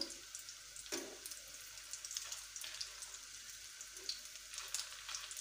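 Hot oil sizzling and crackling around breadcrumb-coated potato snacks shallow-frying in a pan, with fine popping throughout. A slotted spoon clicks against the pan at the start and again about a second in as the pieces are turned.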